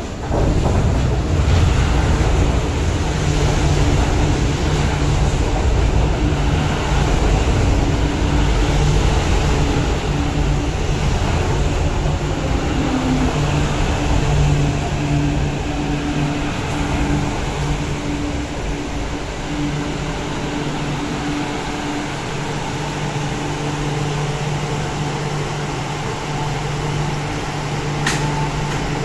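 MTR Q-train electric multiple unit running into a station platform and slowing to a stop: a steady rumble of wheels on rail with a low electric motor hum, easing as the train slows. A short sharp click near the end.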